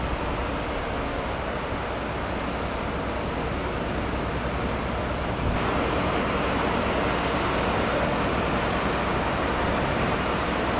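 Steady city street traffic noise with the hum of vehicle engines, growing slightly louder about halfway through.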